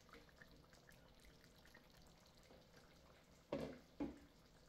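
Faint bubbling and popping of a pot of stewed chicken simmering on low heat, with two sharp knocks about half a second apart, three and a half seconds in.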